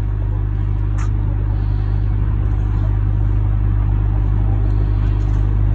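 A motor running steadily with a constant low hum, and a brief faint high sound about a second in.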